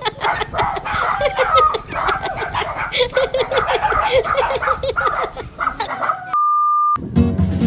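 A rapid run of short repeated calls, three or four a second. A steady electronic beep sounds for about half a second near the end, and music starts just after it.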